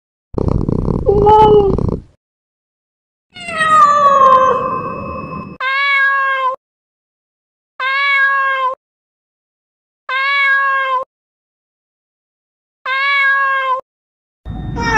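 Domestic cat meowing: six separate calls, the first two longer and falling in pitch, then four short meows of the same shape spaced about two to three seconds apart.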